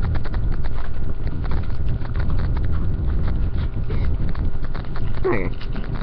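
Plastic blister packaging of a trading-card pack being handled and pried open: irregular clicks and crackles over a low rumble.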